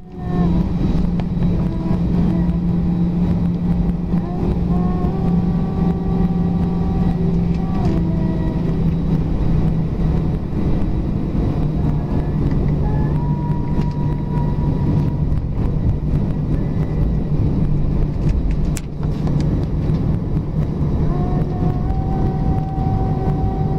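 Airbus A319 jet engines heard from inside the cabin while taxiing onto the runway: a steady low drone with whining tones that step up and down in pitch. Near the end a tone steps up.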